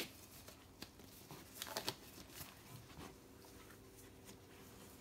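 Faint rustling and soft handling noises from hands and a dog moving on a dog bed, with a small cluster of crinkling clicks a little under two seconds in, over a faint steady hum.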